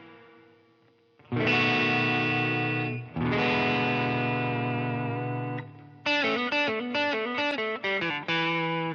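Telecaster-style electric guitar played with light distortion. A chord fades out, then two strummed chords ring out for about two seconds each, and after about six seconds comes a quick run of short, choppy chords.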